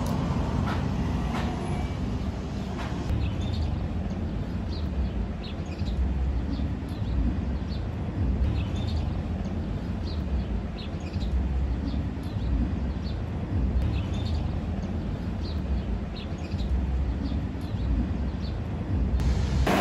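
Steady low background rumble with small bird chirps scattered over it.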